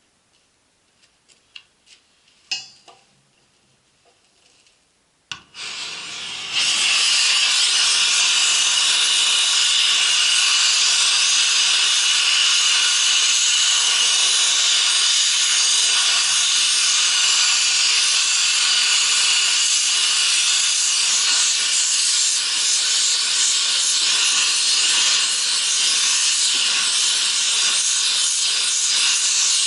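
Oxy-acetylene gas welding torch: a few light clicks, then gas hisses briefly about five seconds in, and the lit flame burns with a loud, steady hiss.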